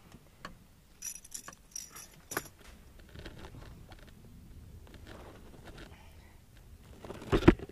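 Fishing tackle being handled in a canoe: a few light metallic clinks and rattles, followed by soft handling noise and a loud thump near the end.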